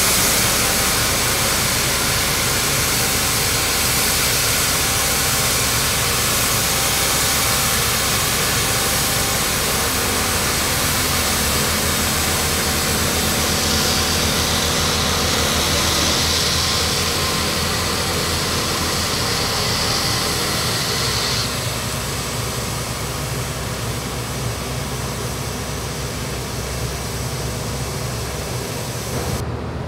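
Excavator-mounted OMS vibroflot (depth vibrator) running in the ground while building a stone column, along with the excavator's diesel engine: a steady, loud mechanical din with a strong hiss. The hiss lessens about two-thirds of the way through.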